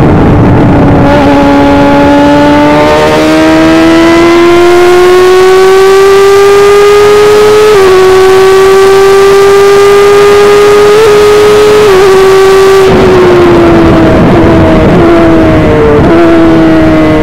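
Onboard sound of an F1000 formula car's 1000cc motorcycle engine at full throttle, its pitch climbing slowly with a brief dip at a gear change about halfway. Near the end it comes off the throttle and the pitch falls, with two short blips as it downshifts.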